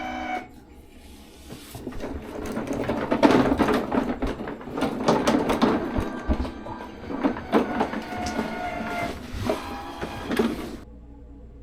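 Crawl space carts being moved, wheels and frames rattling and knocking with a few short squeaks, then cutting off abruptly near the end.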